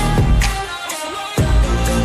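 Pop song playing in an instrumental stretch without vocals, with a steady beat and deep bass hits.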